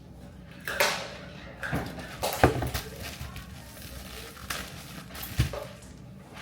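A handful of short knocks and rustles, like things being picked up and set down, over a low steady hum.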